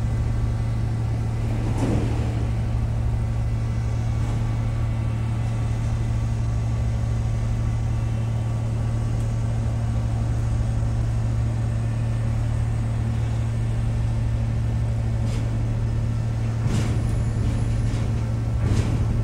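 Ship's engine droning steadily as a deep, even hum with fainter steady tones above it, plus a few brief rushes of noise near the start and near the end.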